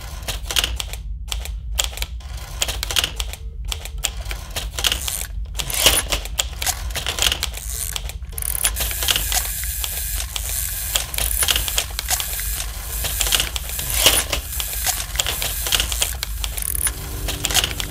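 Manual typewriter keys striking in a quick, irregular clatter over a steady low hum. Near the end a few sustained low tones come in.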